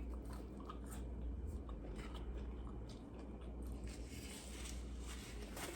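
Faint chewing of a fried chicken sandwich: soft scattered mouth clicks over a steady low hum.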